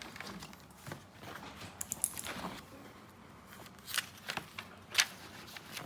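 Lego pieces and packaging being handled: light rustling with a few sharp plastic clicks and taps, the loudest about five seconds in.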